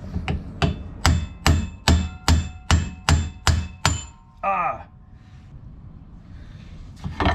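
A hammer strikes a steel socket used as a drift against a Porsche 911 rear wheel hub, driving the hub out of its bearing. There are about ten rapid metallic blows, roughly two and a half a second, each ringing. After a pause comes one more loud knock near the end.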